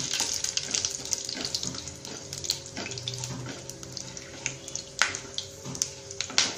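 Whole spices and a bay leaf sizzling in hot oil as they are stirred with a wooden spatula, the tempering stage of a spiced rice dish. The sizzle eases after about two seconds, and a few sharp clicks come near the end.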